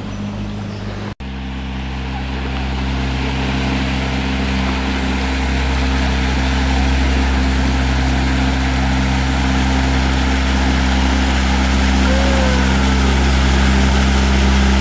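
Motorboat engine running steadily with a low hum, over a haze of rushing water and wind noise that grows gradually louder. There is a brief dropout about a second in.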